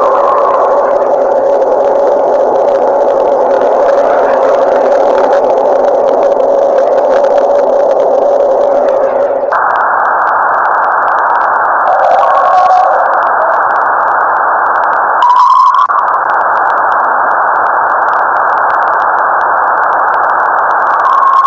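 Loud, steady electronic hiss with a few held tones in it, the kind of sonified spacecraft or radio recording presented as the sound of space. About nine and a half seconds in it switches abruptly to a brighter, even hiss, with a short sweeping sound about two-thirds of the way through.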